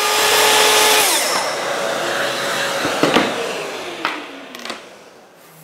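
Festool TS55 plunge track saw, fitted with a 28-tooth universal blade, running at full speed as it crosscuts a wooden board. About three seconds in the motor is switched off and winds down with a falling whine.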